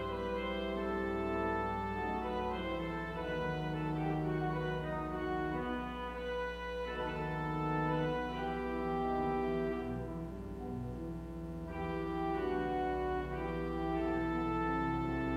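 Church organ playing slow, sustained chords that change every second or so over a held low bass note.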